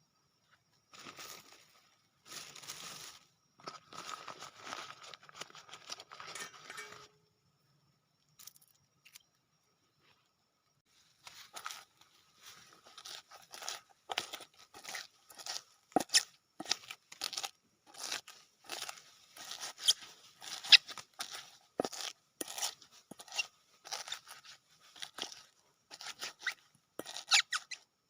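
Sambal being prepared by hand: a few seconds of rustling and crinkling, then after a short pause an irregular run of sharp clicks and knocks from the ingredients and utensils being worked.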